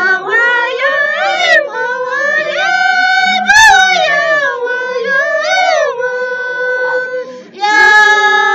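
Two women singing a yaraví (harawi), a traditional Quechua song, unaccompanied in high voices, with long held notes that slide up and down. There is a short break for breath about seven and a half seconds in before the next note starts.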